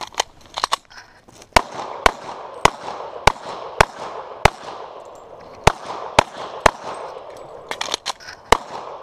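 Semi-automatic pistol firing a string of about a dozen shots, roughly two a second. After a pause about seven seconds in, while the shooter reloads, two more shots follow near the end.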